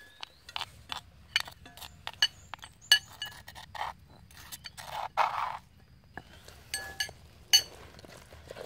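Stainless steel spoon clinking and scraping against a stone mortar as ground spice paste is scooped out: a run of sharp, ringing clinks, with a longer scrape about five seconds in.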